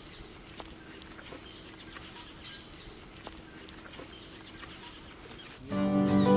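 Faint outdoor background with a few soft clicks, then background music starts suddenly near the end.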